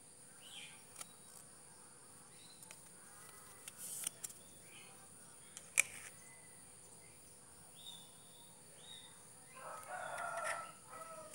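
A rooster crows once, about a second long, near the end, over a steady high hiss. A few brief sharp clicks come earlier, the sharpest near the middle.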